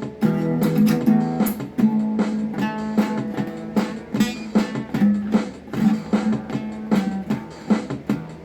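Instrumental music: a guitar strumming chords in a steady rhythm, with no singing.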